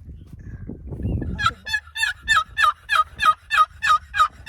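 Wooden box turkey call played by hand in a fast series of short yelps, about four a second, imitating a turkey, starting about a second and a half in.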